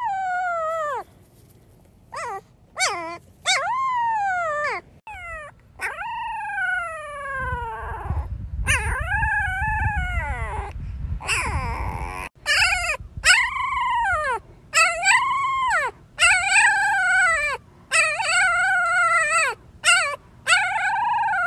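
Husky puppies howling: a string of short, high-pitched howls, the first ones sliding down in pitch, the later ones rising and falling in arches, with brief pauses between them. A low rumble sits under the calls in the middle.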